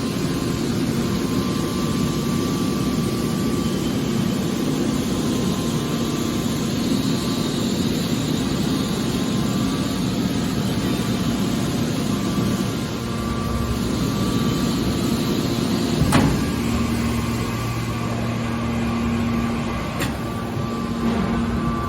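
Hydraulic metal baler running: a steady hum from its pump and motor with a few held tones, broken by a sharp knock about 16 seconds in and a lighter one near 20 seconds.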